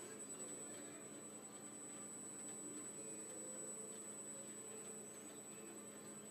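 Woodfast wood lathe running steadily at low speed, a faint even motor hum, with a thin steady high-pitched whine over it.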